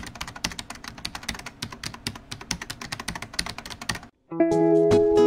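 Rapid computer-keyboard typing, many quick clicks a second, which stops about four seconds in; after a brief gap, music begins.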